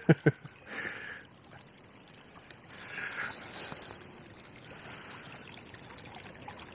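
Steady wash of flowing river water, with a few faint ticks and handling noises from the rod and reel while a hooked fish is played.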